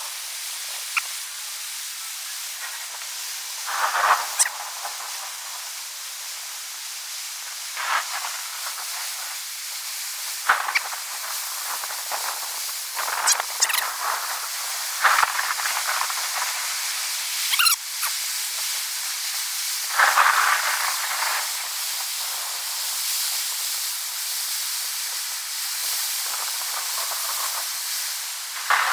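Storm rain and wind sped up six times, a steady high hiss with louder gusting surges every few seconds.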